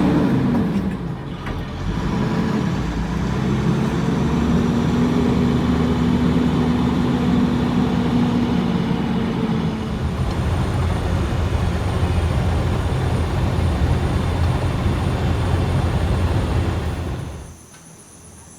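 Pickup truck driving, with steady engine and road noise; the engine pitch drops about a second in, then rises and holds. Near the end it cuts to a quiet background with insects chirping.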